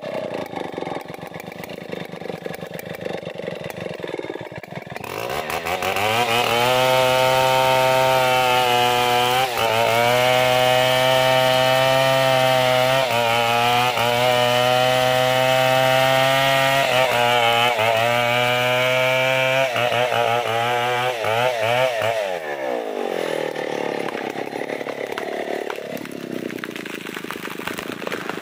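Two-stroke chainsaw cutting into the trunk of a damar tree. It runs at low speed at first, then about five seconds in it is opened up to full throttle and holds a steady high-revving tone with brief dips as the bar bites. Near the end the throttle is released and the engine note falls away to a low idle.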